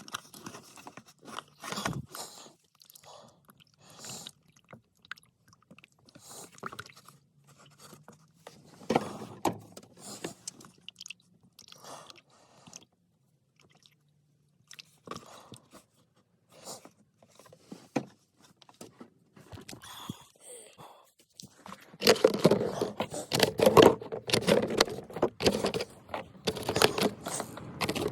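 Irregular clicks, scrapes and knocks of tools and parts being handled during an oil change. The handling turns much louder and busier for the last several seconds.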